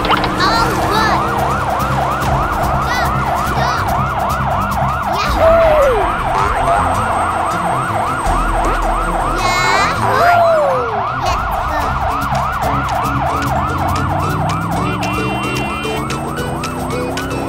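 Cartoon siren sound effect from an animated emergency train: a fast siren wailing up and down about three times a second without a break. Two short downward-sliding tones cut in over it, about five and ten seconds in.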